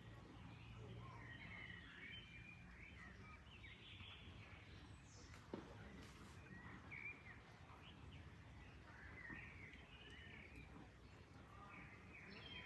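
Birds chirping and twittering faintly, many short calls scattered throughout, over a steady low background hiss, with one sharp click about five and a half seconds in.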